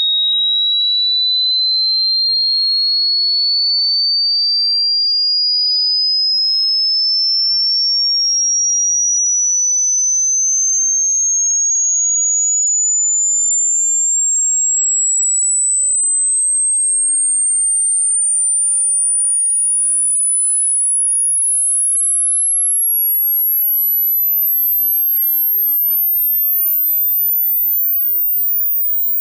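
Hearing-test sine-wave sweep: a single pure tone climbing steadily in pitch from about 4 kHz into the top of the audible range, used to find the highest pitch a listener can still hear.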